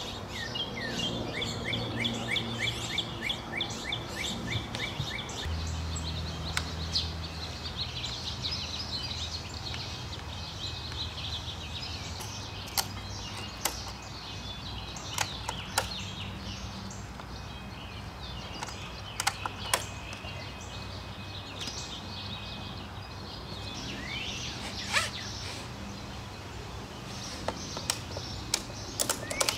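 Songbirds chirping, with a rapid trill of repeated notes in the first few seconds. Scattered clicks and knocks come from a fiberglass telescoping mast being handled and strapped to a wooden railing, with a run of quick clicks near the end as a ratchet strap is tightened. A low hum sounds briefly about six seconds in.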